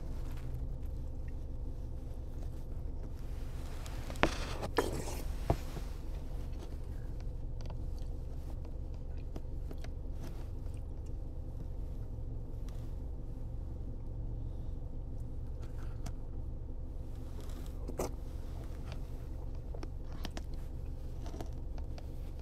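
Steady low hum inside a car cabin, with a few short clicks and scrapes of a spoon against a paper cup and quiet chewing.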